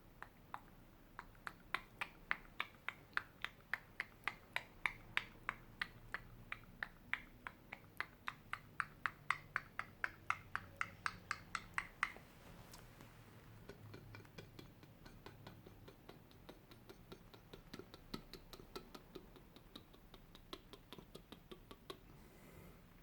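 Close-miked ASMR clicking: crisp, sharp clicks repeating about three to four times a second, cutting off about twelve seconds in. Fainter, sparser clicks follow.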